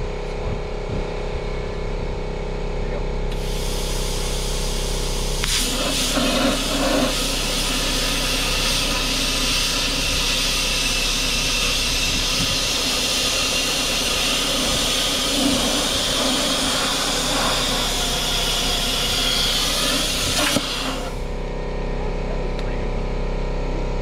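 Handheld plasma cutter piercing a hole through square steel tubing: a high hiss of air starts about three seconds in, a harsher, fuller hiss of the cutting arc joins about two seconds later and runs steadily, then both cut off together a few seconds before the end. A steady machine hum runs underneath throughout.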